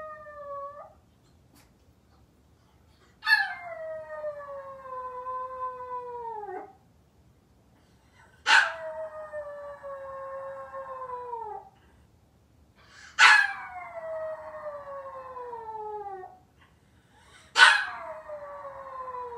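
Maltese dog howling while left home alone: a series of long howls, each opening with a sharp high yelp and then sliding slowly down in pitch for about three seconds, with short pauses between them.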